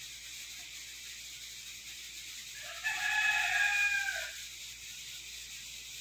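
A single long, drawn-out animal call about three seconds in, lasting about a second and a half and dipping slightly at the end, over a steady background hiss.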